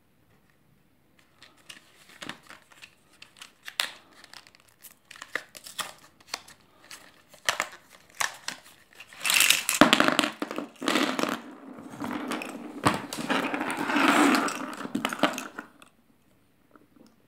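Cardboard-and-plastic battery packaging being handled and opened by hand: scattered clicks and rustles at first, then a louder stretch of crinkling and tearing from about nine seconds in that stops shortly before the end.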